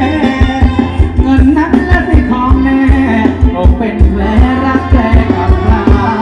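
Thai ramwong dance music played by a live band: a steady drum beat under melodic instruments, with a singer.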